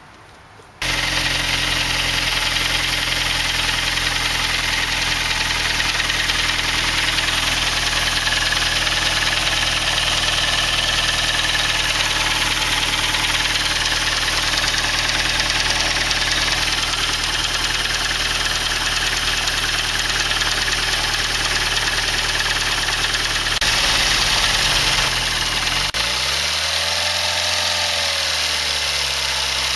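Saab 9-3's B205E four-cylinder turbo engine idling steadily, the sound starting abruptly just under a second in. Near the end the engine speed dips and rises again a couple of times.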